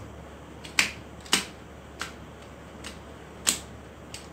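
Sharp metallic clicks of pliers working on a tractor starter motor's drive end as a plastic part is pulled off the armature shaft. There are three loud clicks, about a second in, a half-second later and near the end, with fainter ones between.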